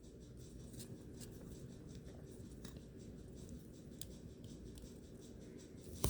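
Faint handling of plastic LEGO pieces: a few light clicks and rubs scattered over a low steady hum.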